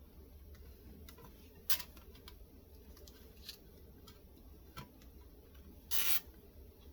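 Scattered small clicks and taps from handling clear stamps on a stamp platform, with one sharp click a little under two seconds in and a brief louder scrape or snap about six seconds in.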